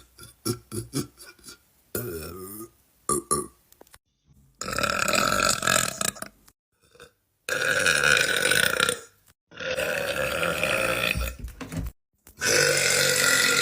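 A man burping: a quick run of short burps, then four long belches of about two seconds each, with short pauses between them.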